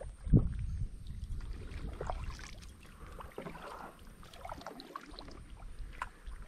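Kayak paddle strokes: the blade dipping and splashing in the water, with scattered knocks of paddle on hull. The loudest is a thump about a third of a second in.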